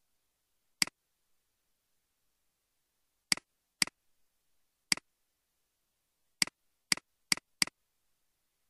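Computer mouse button clicks, eight sharp identical clicks at uneven spacing, each a quick double tick of press and release, with a quick run of four near the end.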